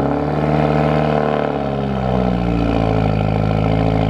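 2016 Subaru WRX's turbocharged 2.0-litre flat-four running at a raised cold-start idle through a new Tomei Expreme Ti titanium exhaust, loud. Its pitch eases down slightly over the first couple of seconds, then holds steady.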